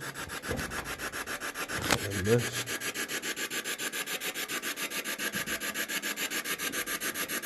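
Spirit box sweeping through radio stations: a rapid, regular choppy static of about eight pulses a second, with a short voice-like snatch and a click about two seconds in.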